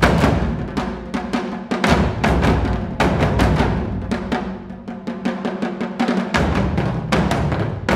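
Japanese taiko drum ensemble playing a fast, driving rhythm of many strikes, over a deep low note that drops out briefly about two seconds in and again for a couple of seconds in the second half.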